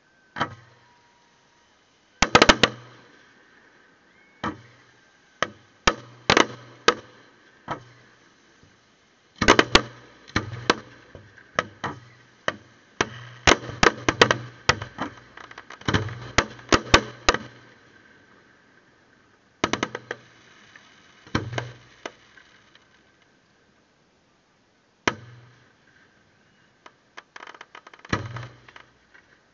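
Fireworks display: aerial shells going off in sharp bangs, each with a low boom. The bangs come one or two at a time at first, then as a rapid barrage of overlapping bursts through the middle, then fewer, with a quick run of smaller pops near the end.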